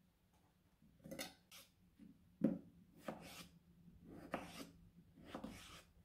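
Kitchen knife slicing raw potatoes on a hard cutting board: a series of rasping cuts about once a second, with a sharper knock of the blade on the board about two and a half seconds in.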